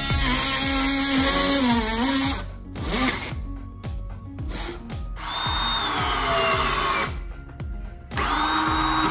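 Power tools cutting PVC pipe, including an oscillating multi-tool, run in three bursts of a couple of seconds each, the motor whine dipping in pitch under load in the first. Background music with a steady beat plays underneath.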